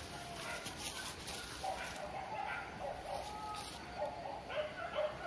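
Leashed boar-hunting dogs calling repeatedly in short, high yelps and whines as they strain toward the scent.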